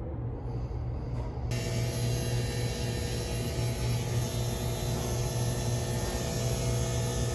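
Navac cordless vacuum pump running steadily, a low hum with an even whirring over it that comes in sharply about a second and a half in, while it pulls a vacuum on the walk-in cooler's refrigerant lines after the repair.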